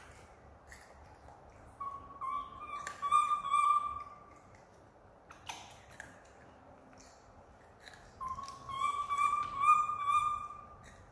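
Young macaque giving a drawn-out, thin cooing whimper twice, each call about two and a half seconds long and rising slightly in pitch. Soft clicks of eating come between the calls.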